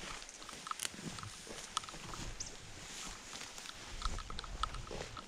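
Footsteps and rustling of someone walking through long grass on a dirt track, with low wind rumble and scattered faint clicks and short high chirps.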